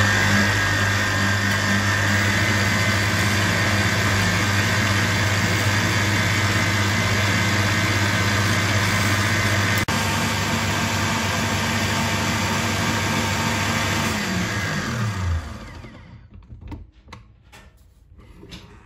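Kenwood stand mixer running at high speed, its whisk beating eggs and sugar into a foam: a loud, steady motor hum. About 14 seconds in it is switched off and the hum falls in pitch as the motor winds down, followed by a few faint handling clicks.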